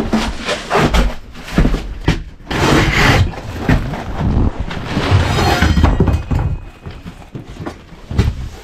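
Irregular thunks and knocks, with scraping and tearing between them, as old carpet is pried and ripped up from a bus floor with a pry bar.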